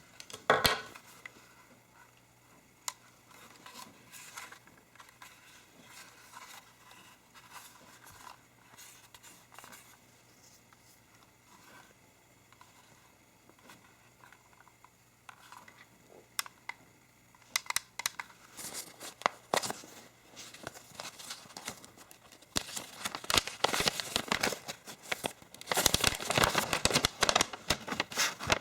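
Unboxing handling of packaging: scattered clicks and taps, then plastic wrapping crinkling and tearing, loudest in the last several seconds.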